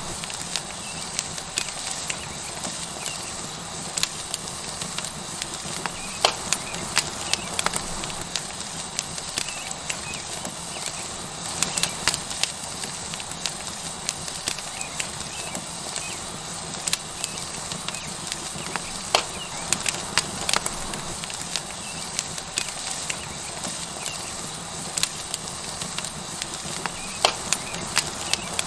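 Tomahawk steak sizzling on a hot rock with a steady hiss, over a wood fire crackling with frequent sharp, irregular pops.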